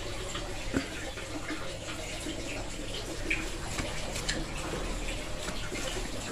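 Water running and splashing as an office chair is washed, over a low steady hum.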